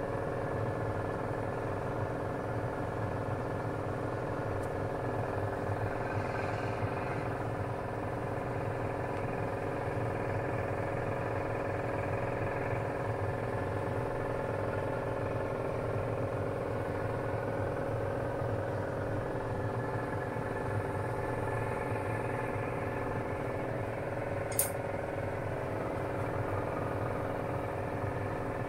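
Steady hum and rushing noise of a kitchen stove and a wok of boiling water cooking noodles, with one sharp click near the end.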